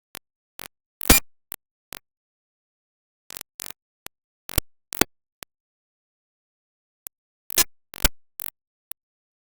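Sparse sharp percussive hits, about two a second in short groups, with dead silence between them. The loudest hit comes about a second in.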